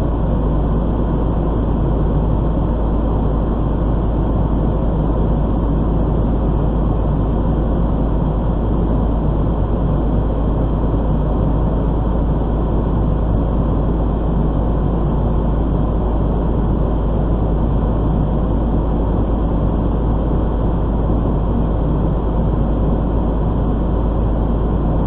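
Fire engine's diesel engine running steadily, a constant low drone heard from inside the cab.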